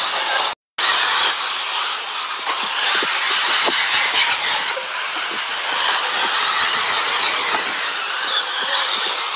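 RC off-road cars running on a dirt track: a loud, steady, high-pitched hiss of motors and tyres on dirt, with small scattered clicks. The sound cuts out completely for a moment about half a second in.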